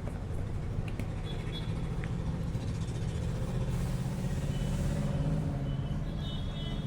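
Steady low rumble, as of a motor or vehicle running, with faint high-pitched tones coming and going.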